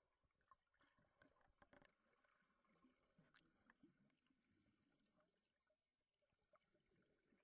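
Near silence underwater: faint scattered clicks and a light crackle, a few a little sharper between about one and a half and three and a half seconds in.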